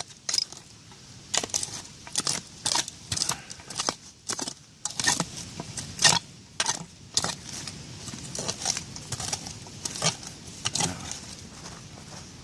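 Digging and raking through soil full of broken glass: irregular scrapes, clicks and glass clinking, about two or three a second.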